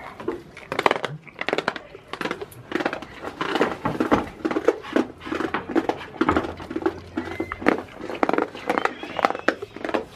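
Goats crunching hand-fed treats, a quick irregular run of crunches and rustles in a small wooden shed.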